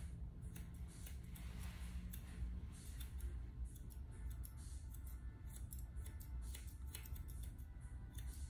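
Grooming scissors snipping through a puppy's coat in quick, irregular runs of snips, over a low steady hum.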